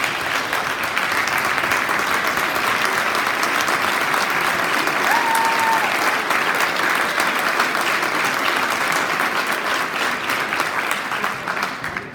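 A large assembly audience clapping in a sustained round of applause for a standing ovation, steady throughout and dying away at the end. A brief high, held note stands out above the clapping about five seconds in.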